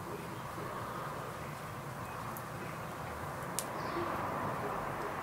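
Outdoor background with a steady hiss, a single sharp click about three and a half seconds in, and a few faint short bird chirps near the end.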